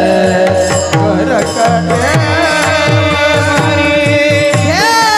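Indian devotional bhajan music: a melody of held, wavering notes over a steady rhythm of hand-drum strokes, with a new, higher phrase entering near the end.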